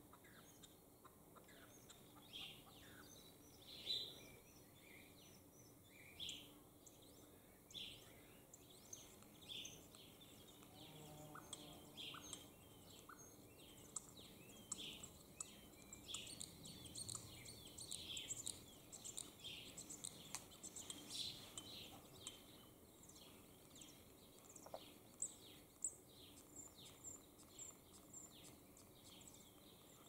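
Two male European starlings singing: a faint run of short whistles, clicks and chirps, spaced out at first and growing fast and dense about a third of the way in.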